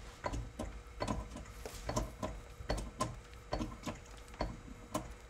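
Hydraulic bottle jack being pumped by hand: a series of light mechanical clicks, one or two with each stroke of the handle, as the jack pushes a 2x4 post up against a cracked floor joist.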